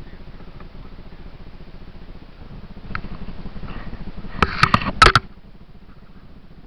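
Dirt bike engine idling with a low, even pulse. About four and a half seconds in comes a loud cluster of sharp knocks and rustling as the camera on the bike is handled and moved.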